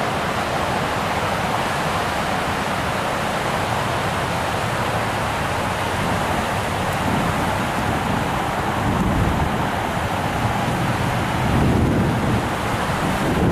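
Steady rush of river water pouring over a lock-and-dam spillway. From about seven seconds in, low gusts of wind buffet the microphone.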